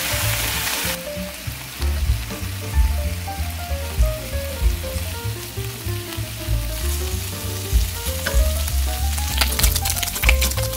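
Bacon strips sizzling in a frying pan, with the crackling and spitting of the fat growing denser near the end as the bacon cooks. Light background music plays along.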